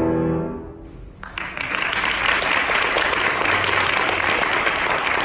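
A grand piano's final chord ringing out and fading away within about a second. Then audience applause breaks out and keeps going.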